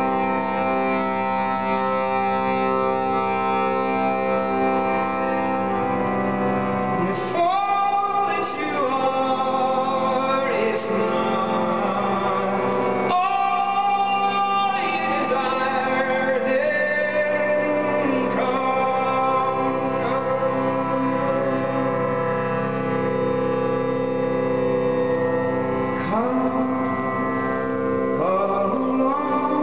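Harmonium holding sustained chords, with a man's voice singing long held phrases over it from about seven seconds in.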